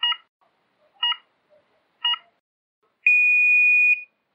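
Canoe slalom start countdown signal: three short electronic beeps one second apart, then one long, steady beep about three seconds in that marks the start.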